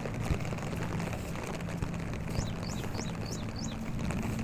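A bird calling outdoors: a quick run of about five repeated high, hooked notes about halfway through, over a steady low hum.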